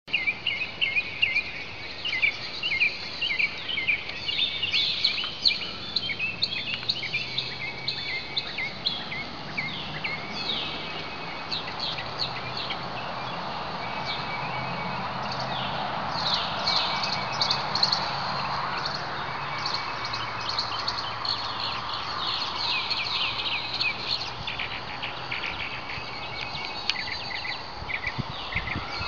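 Birds chirping and twittering outdoors: many short, quick calls overlapping throughout, over a soft background noise that swells in the middle.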